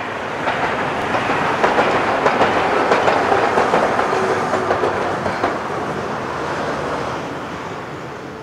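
Hiroshima Electric Railway articulated streetcar passing close by on street track, its wheels clicking rapidly over the rails. The sound swells within the first second, is loudest as the tram goes by, and fades away over the last few seconds.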